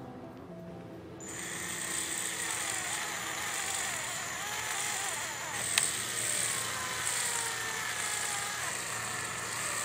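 Small handheld power tool motor starting about a second in and then running steadily with a high whine whose pitch wavers as it works. One sharp click is heard a little past the middle.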